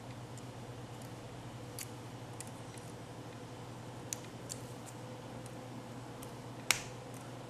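Small steel jewelry pliers clicking as they grip and bend copper wire: a few faint clicks and one sharper metal click near the end, over a steady low hum.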